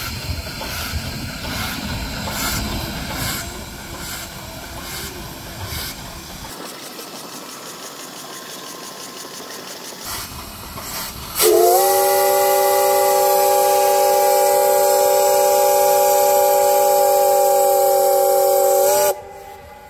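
A steam locomotive hissing steadily. About eleven seconds in, its whistle blows: a loud chord of several tones that slides up slightly at the start, holds steady for about seven seconds and cuts off sharply.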